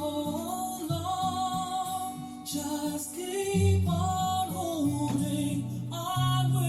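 Background music: a slow love song with a held melody over guitar and a steady bass line.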